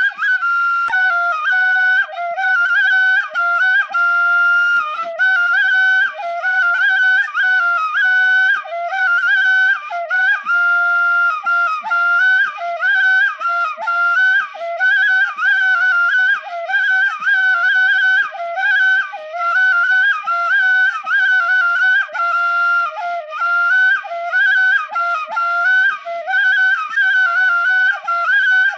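Background music: a solo flute playing a quick, ornamented melody that trills around a few held notes, with no drums.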